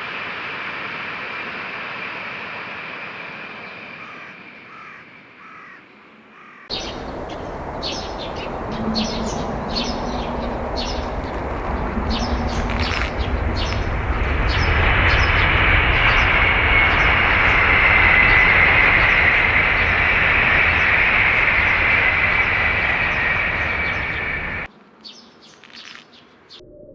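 Shinkansen bullet train running past at speed: a steady rushing noise that builds to its loudest and then cuts off abruptly, with birds chirping over it early on in the louder stretch.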